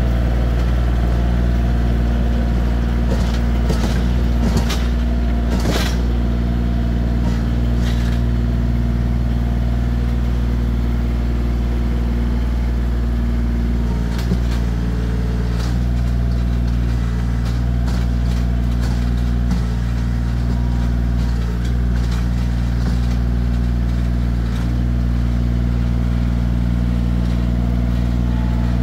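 Bobcat CT2025 compact tractor's 25 hp diesel engine running steadily as the tractor drives off. A few sharp knocks come in the first six seconds.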